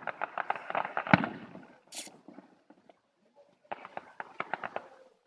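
Fireworks going off in rapid runs of sharp cracks, with one louder bang about a second in. After a short lull, a second run of crackling cracks follows.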